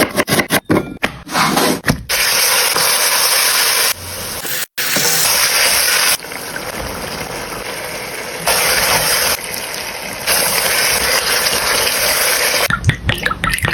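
Food sizzling in a hot frying pan: a steady hiss heard in several stretches spliced together, which step up and down in level. Short clicks and knocks come in the first two seconds.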